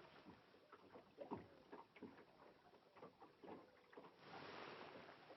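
Near silence: faint, scattered clicks and light knocks, with a brief soft hiss about four seconds in.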